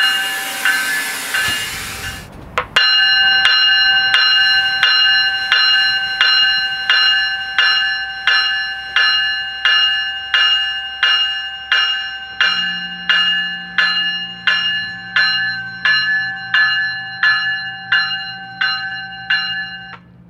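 Train bell ringing steadily, about one and a half strikes a second, each strike a clear ringing tone that dies away. A loud hiss fills the first two seconds and ends sharply before the ringing settles in. A low engine drone joins about twelve seconds in.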